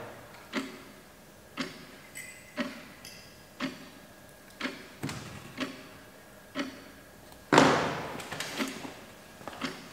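Clock ticking steadily about once a second, with one brief, louder noise about seven and a half seconds in.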